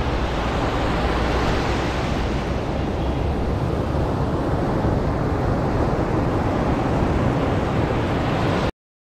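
Surf washing up a sandy shore, heard close at the waterline, with wind rumbling on the microphone. The sound cuts off suddenly near the end.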